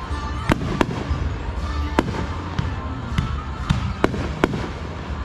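Aerial fireworks bursting: a string of sharp bangs about half a second to a second apart, over a continuous low rumble.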